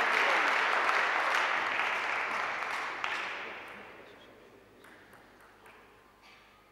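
Spectators applauding a table tennis point, the clapping dying away over about four seconds. Near the end come a few faint light taps, a celluloid table tennis ball bounced as the server gets ready.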